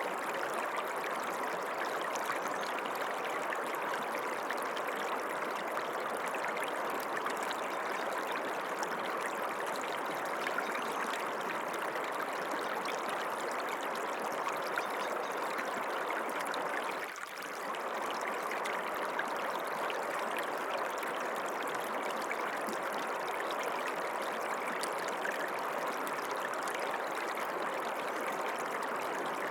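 Stream water running steadily, an even rushing, trickling sound. It dips briefly about two-thirds of the way through.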